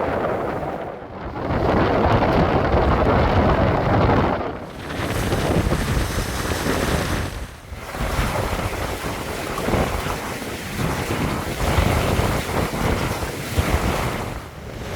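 Wind buffeting the microphone over the rush of waves and water past a sailboat under way in rough, squally weather. The noise drops briefly a few times.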